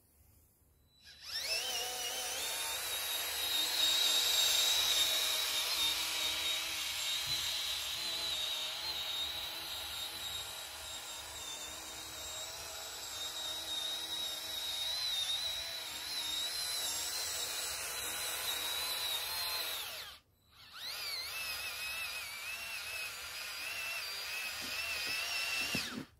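Electric motors and plastic gear train of a BuWizz-powered Lego Technic John Deere 8R model tractor whining steadily under drive, starting about a second in. The whine cuts out briefly about twenty seconds in, resumes at a different pitch, and stops just before the end.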